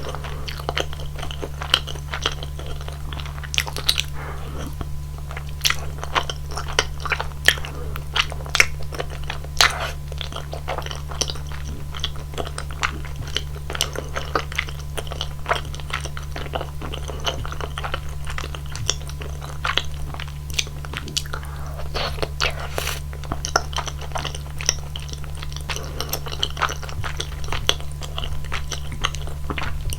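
Close-miked eating sounds: chewing and biting of rosé tteokbokki, with dense, irregular small wet clicks and smacks from the mouth. A steady low hum runs underneath.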